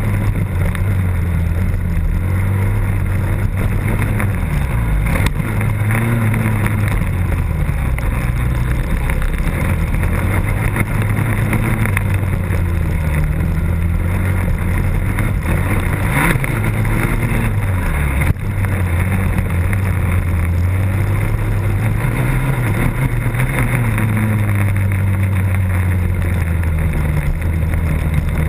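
Motocross bike engine racing, heard close from a camera mounted on the bike, its pitch rising and falling again and again as the rider works the throttle and shifts.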